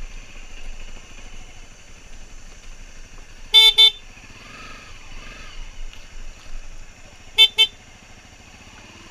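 Motorcycle horn giving two quick double beeps, one pair about three and a half seconds in and another about seven and a half seconds in, over the steady running of the bike's engine.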